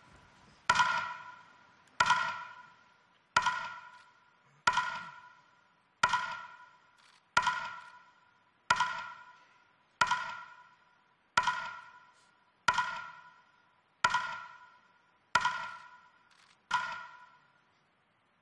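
Metronome beating slowly and evenly, about one beat every 1.35 seconds, thirteen beats in all. Each beat is a sharp, pitched knock that rings briefly and dies away. The beats mark a minute of silence.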